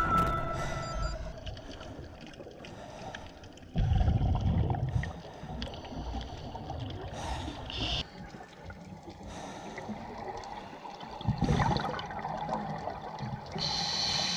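Scuba regulator exhaust bubbles gurgling, recorded underwater through the camera housing so they sound muffled. Two louder exhalation gurgles come about 4 seconds in and again about 11 seconds in, over faint steady water noise.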